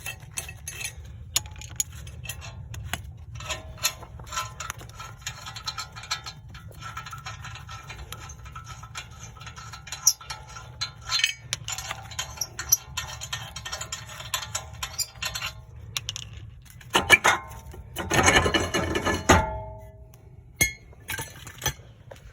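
Metal clinks and knocks of tools working on a rusted-on brake rotor. A cluster of loud metallic clanks comes about 17 to 19 seconds in, with a brief ring after them.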